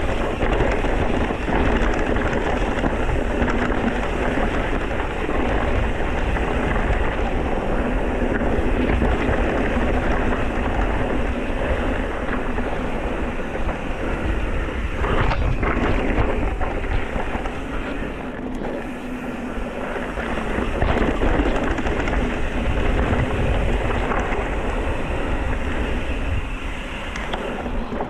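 Wind rushing over the camera microphone and tyres rumbling over a rough trail as an electric mountain bike rides along, with a brief knock about fifteen seconds in.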